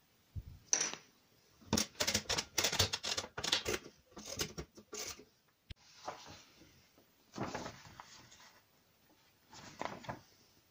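A sheet of paper being handled and lifted off a wooden table. A dense run of crackling rustles comes first, then a few softer rustles as the sheet is raised and held.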